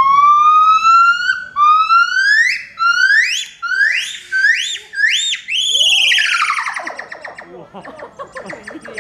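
Yellow-cheeked gibbon giving its loud call. It is a series of clear whistled notes, each rising in pitch, the first long and the later ones shorter and quicker. About six seconds in comes a quavering run of notes sliding down in pitch that fades away.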